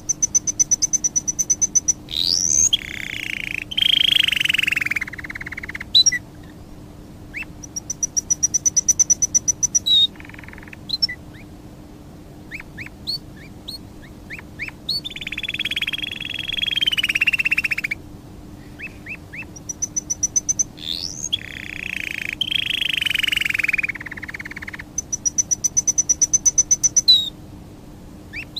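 Birdsong: a rapid, high, pulsing trill that comes back three times, between longer chirping calls that sweep upward. A faint steady low hum lies underneath.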